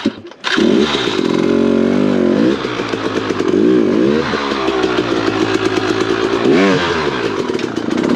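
Dirt bike engine coming in loud about half a second in, then running with the throttle blipped up and down several times.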